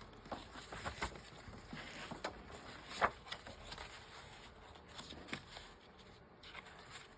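Sheets of paper being handled and trimmed on a work table: scattered light taps, clicks and rustles, the sharpest about three seconds in.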